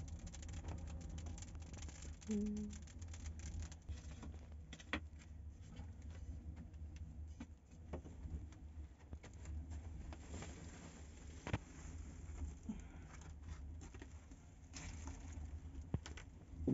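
Wood fire burning in a clay tandoor oven: a steady low rumble with scattered sharp crackles and pops as the firewood burns down to embers.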